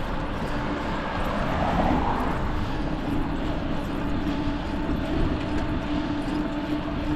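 Wind rushing over the microphone of a moving bicycle, with a steady low hum underneath. A short swell of rushing noise comes about one to two seconds in.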